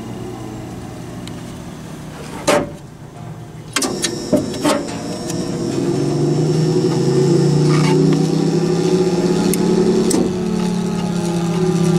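Thunderbolt 1003 outdoor warning siren running, a steady mechanical hum with a low, even pitch. A few sharp clicks come between about two and five seconds in. From about six seconds in the running tone grows much louder.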